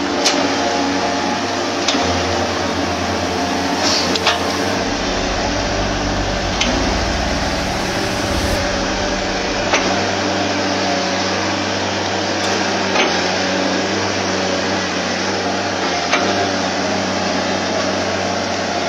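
Tata Hitachi excavator's diesel engine running steadily under working load, its low rumble heavier for a few seconds near the start, with occasional sharp knocks and cracks as the bucket works through the floating wood debris.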